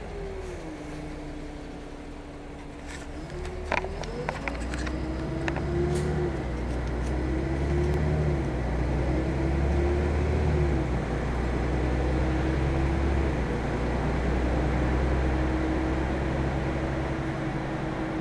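City bus heard from inside the passenger cabin: a low engine rumble with a drivetrain whine whose pitch drops as the bus slows, then climbs as it pulls away and rises and falls in steps with the gear changes before holding steady. A few sharp clicks and knocks come about four seconds in, as the bus moves off.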